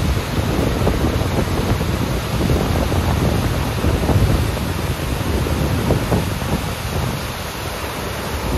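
Waterfall pouring through a narrow rock gorge: a steady, loud rush of white water, with gusts of wind buffeting the microphone.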